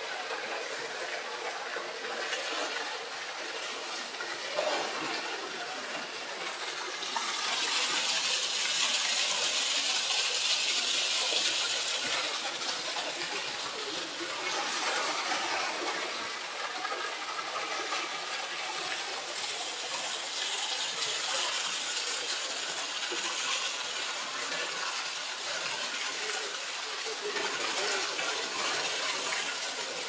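Steady rush of a waterfall pouring into a pool, with splashing as two polar bears swim and dive in the water. The water noise swells for several seconds about a quarter of the way in, and again briefly later.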